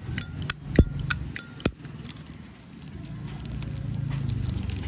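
Zippo lighter lid flicked open and snapped shut, a quick series of sharp metallic clicks with a brief ring, in the first couple of seconds. Then a low steady hum.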